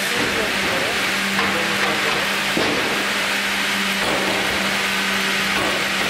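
FIMAKSAN Fİ.120/HDG vertical band saw sawmill with its log carriage running: a steady motor hum under a dense hiss of sawing wood, with one knock about two and a half seconds in.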